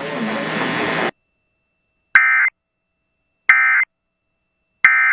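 NOAA Weather Radio ending an alert: about a second of radio hiss cuts off, then three short, harsh digital data bursts come about 1.3 seconds apart. They are the Emergency Alert System end-of-message code, which marks the end of the broadcast alert.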